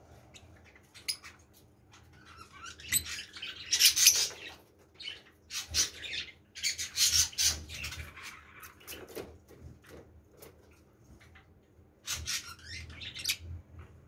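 Caged Fischer's lovebirds calling in short, high-pitched chirps, in several clusters with a quieter stretch in the middle.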